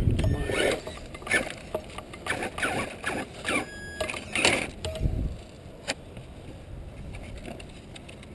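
Axial Wraith RC rock crawler's 27-turn brushed motor and geared drivetrain whining in short, uneven bursts as it crawls over rocks, quieter after about five seconds.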